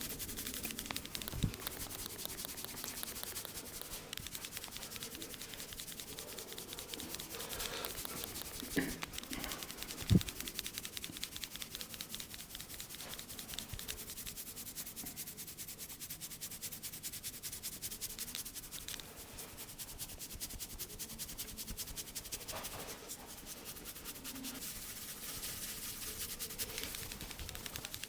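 Hands rubbing and scratching through hair and over the scalp during a head massage, making a steady, fine, crackly rasp. A short thump comes about a second and a half in, and a sharper one about ten seconds in.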